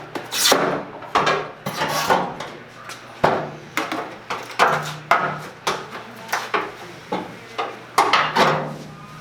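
Repeated scraping and knocking, irregular strokes about one a second, as glued aluminium panels are pried and torn off a steel car frame. A steady low hum runs underneath.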